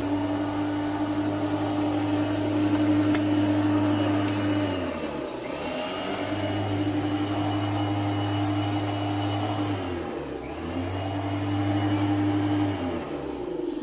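Corded electric rotary lawnmower running with a steady motor hum while mowing grass. Its pitch sinks and recovers twice, and it winds down near the end.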